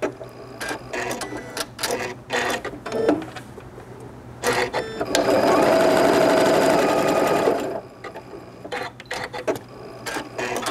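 Janome sewing machine sewing zigzag stitches, going in short slow spurts of individual stitches, then running steadily for about two and a half seconds in the middle before slowing to single stitches again.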